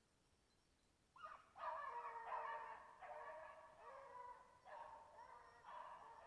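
Griffon bleu de Gascogne hounds baying faintly, starting about a second in: long drawn-out cries that break off and start again several times.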